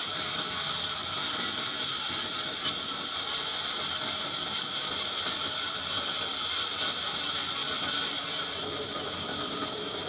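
Band sawmill running, its thin band blade making a steady, unbroken hiss with a faint whine.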